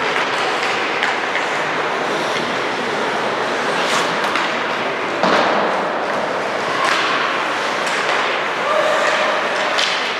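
Ice arena game sound: a steady wash of spectator chatter and skating, broken by several sharp knocks of sticks and play against the ice and boards, the loudest about five seconds in.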